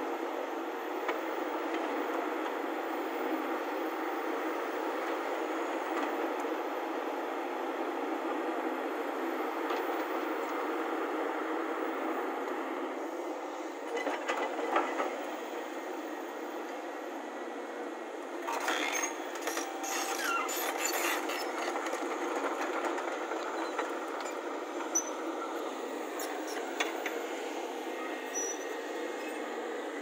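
Volvo crawler excavator's diesel engine running steadily under digging and loading work, with sharp metallic clanks and knocks about halfway through, a cluster a few seconds later and a couple more near the end.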